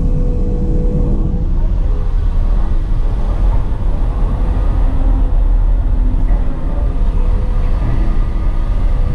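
Caterpillar hydraulic excavator running under load, heard from inside the cab: a steady, loud, low engine and hydraulic drone with faint whining tones that come and go as the boom and bucket swing.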